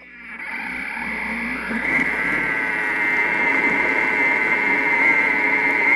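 Thermomix TM31 motor starting up at speed 4 and then running steadily, whirling the butterfly whisk through cooked potatoes to whip them. It swells over the first two seconds or so into a steady whine with a high tone.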